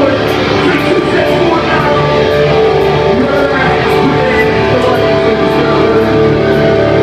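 Loud heavy rock music: distorted electric guitars, bass and drums playing continuously, with held guitar notes and a steady cymbal beat.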